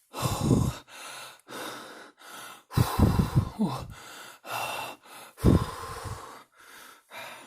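A person breathing heavily and gasping, as if in anguish: three loud, deep gasps about two and a half seconds apart, with quieter breaths in between.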